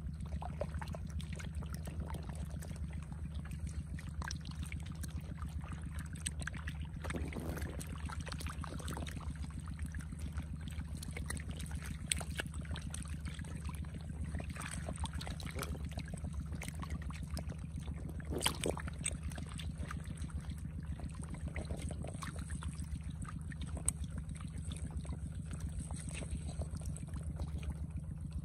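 Shallow muddy water trickling and running along a ditch, with a few splashes from catfish thrashing in it, about a third of the way in and again past halfway. A steady low hum runs underneath.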